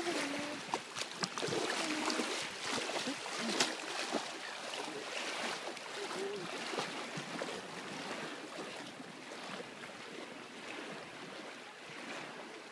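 Legs wading through shallow sea water, splashing with each step, over a steady wash of moving water; the splashes are thickest in the first few seconds.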